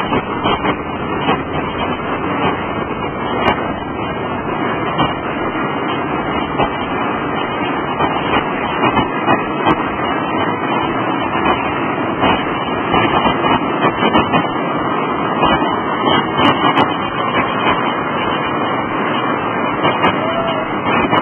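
Steady noise of traffic on a busy multi-lane road, with small irregular knocks and rumbles throughout.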